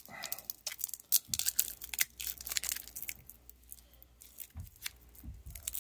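A small sealed package being torn and crinkled open by hand in a series of irregular crackles, a hard-to-open wrapper around a new piston wrist pin.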